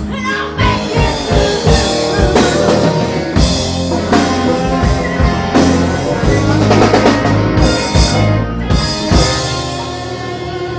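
Rock band playing an instrumental passage of a song: drum fills with bass drum and cymbal hits over sustained guitar and bass chords. Near the end the drumming thins out, leaving a held chord.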